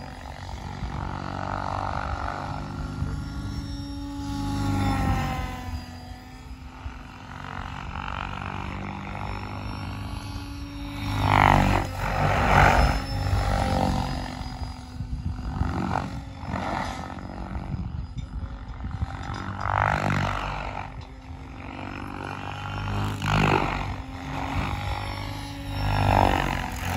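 Large radio-controlled helicopter in aerobatic flight: its rotor blades give a deep buzzing drone with a motor whine, rising and falling in pitch and loudness, with several louder swells as it swoops close.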